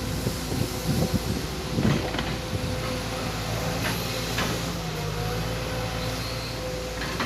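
Sumitomo SH210 excavator's diesel engine running steadily with a thin whine, with a few knocks and clanks, the loudest about a second or two in and again about four seconds in.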